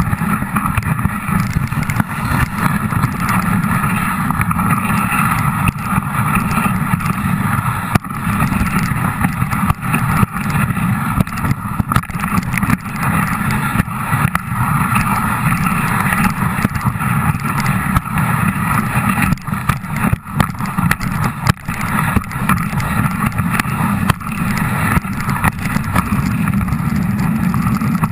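Dog sled gliding over packed snow: a steady rushing scrape of the runners with small knocks and rattles from the sled, mixed with wind on the microphone.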